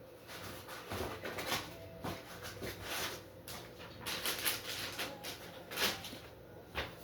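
Rustling and light knocks of hands rummaging through packaging and parts while searching for a lost bag of screws, in irregular bursts with a few sharp clicks.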